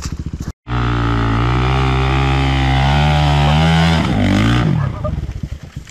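Enduro dirt bike engine, idling, cutting out for a moment, then held at high revs for about three and a half seconds with the pitch creeping slowly upward, before dropping back to a lumpy idle near the end.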